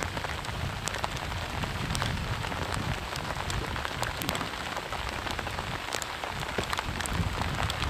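Steady rain falling, a constant hiss dotted with many sharp raindrop ticks.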